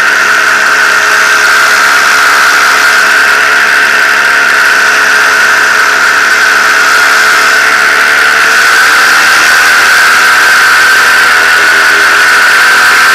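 Paramotor engine running steadily close behind the pilot, a loud buzzing drone whose pitch drifts slightly in the second half.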